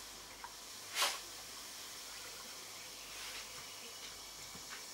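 Granulated sugar pouring from a measuring jug into a glass jar of cherries: a soft, faint hiss of falling grains, with a brief louder rush about a second in.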